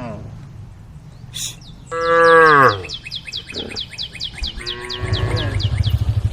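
Cows mooing: a loud moo that falls in pitch about two seconds in, and a fainter falling moo just before five seconds. A rapid run of high chirps sounds above them from about two seconds on. About five seconds in, a low engine rumble starts.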